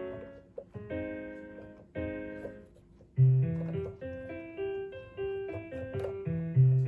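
Piano-like keyboard sound played from the repaired Roland A-300PRO MIDI controller through a computer, a sign that the controller now sends notes. Chords are struck about once a second and left to ring. About three seconds in, a low bass note comes in with a quick run of short single notes above it.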